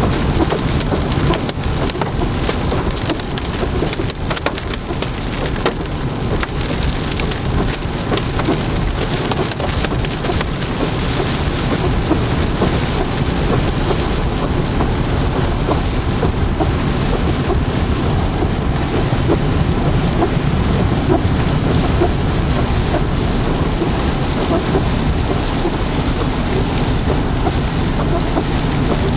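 Hail and heavy rain pelting a car's windshield and roof, heard from inside the car while driving: a steady dense rush with many sharp ticks of hailstones striking the glass.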